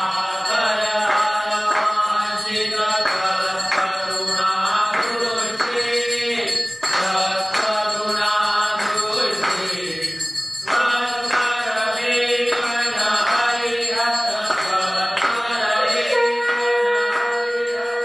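Devotional chant sung with musical accompaniment, the melody moving in short phrases, with one long held note near the end.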